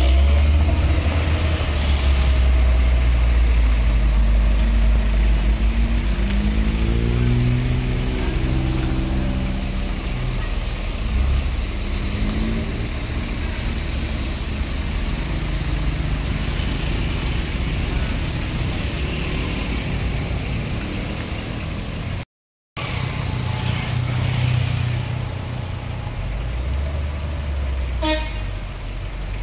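Heavy trucks, cars and motorcycles in slow traffic, their engines running with a steady low drone. A vehicle horn honks, and an engine note rises and falls for a few seconds in the first third.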